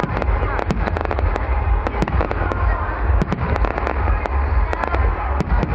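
Fireworks display going off in quick succession: many sharp bangs and crackles over a continuous low rumble.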